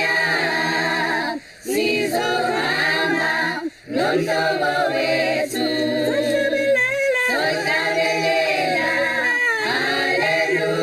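Choir singing a cappella: several voices holding wavering notes over a low sustained note, with two brief breaks about a second and a half and nearly four seconds in.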